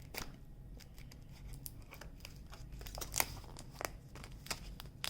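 A heavily taped package being cut and torn open: a string of small snips, rips and crinkles, with a few sharper clicks about three and four seconds in.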